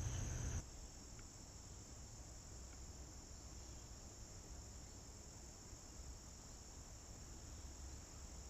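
Crickets trilling in a faint, steady, high chorus. A louder low rumble cuts off about half a second in.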